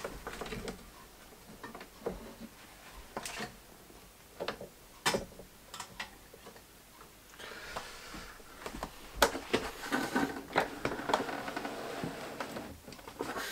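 Scattered light clicks and knocks from handling the chassis of an old valve television, with rubbing and scraping from about halfway through as the hinged chassis is swung out.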